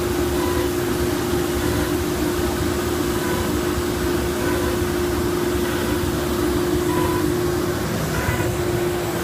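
FMT CNC router line boring closet panels, its spindle and dust-collection suction running: a steady hum over an even rushing air noise, with a few brief higher whines.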